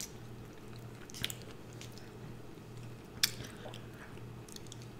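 Mouth sounds of someone eating fast food near the microphone: faint chewing and small smacking ticks, with two sharp crunchy clicks about one and about three seconds in, the second the loudest, over a steady low hum.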